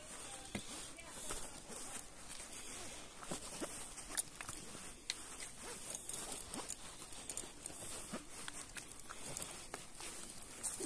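Footsteps on a hillside trail: irregular scuffs, small knocks and snaps, over a faint high hiss.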